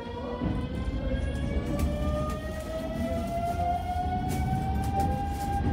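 Electric train pulling away, its traction motors giving a whine that rises steadily in pitch as it accelerates and levels off near the end, over a low running rumble.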